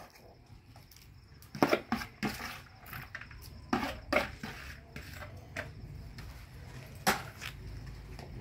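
Metal spoon stirring an aluminium pot of okra soup, with scrapes and several sharp clinks against the pot: a cluster about two seconds in, two more around four seconds, and a single one near seven seconds.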